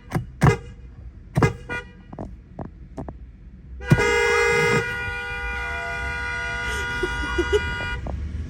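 A few short knocks, then an air horn blows one long chord of several notes about four seconds in. It is loudest at first, holds steady for about four seconds and cuts off suddenly.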